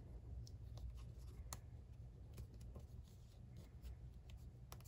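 Faint paper handling: fingers moving and pressing a small die-cut cardstock piece on a card, giving a few scattered light ticks and rustles over a low steady hum.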